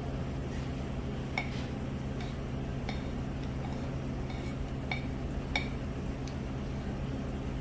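Eating utensils clinking lightly against a bowl, a handful of separate small clicks with a short ring, over a steady low hum of room machinery.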